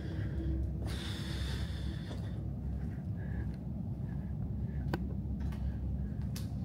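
Low, steady rumble inside a concrete tunnel, with a brief hiss about a second in, faint scuffs and ticks, and one sharp click about five seconds in.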